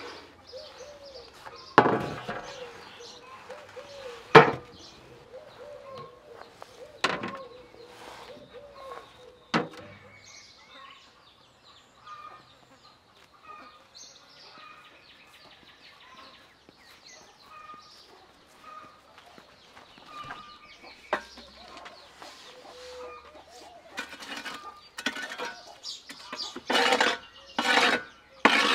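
Four sharp knocks from glass jars and cooking gear being handled, spread over the first ten seconds, then a quick run of louder clatters near the end. Between them, in the quieter yard, small birds chirp.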